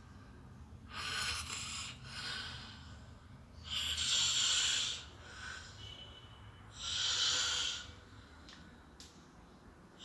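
A man snoring heavily in his sleep, one rasping snore about every three seconds, the two loudest a little before and after the middle.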